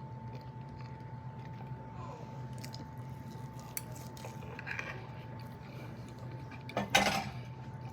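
Cutlery clinking against dishes while eating, a few light clicks and then one louder clatter about seven seconds in, over a steady hum.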